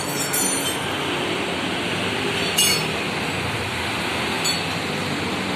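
A few light metallic clinks, three in all, the second the loudest, each ringing briefly, over a steady noisy hum.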